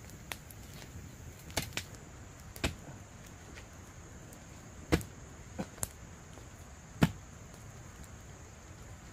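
About eight sharp knocks at irregular intervals, the loudest about five and seven seconds in, over a faint steady background hiss.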